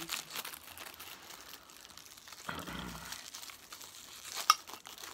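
Plastic bag and foil packaging crinkling as they are handled and opened, with a single sharp click about four and a half seconds in.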